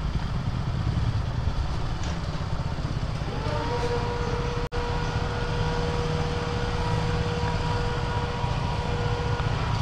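Motorcycle engine running with a steady low rumble. About a third of the way in a steady high tone joins and holds, and the sound cuts out for an instant near the middle.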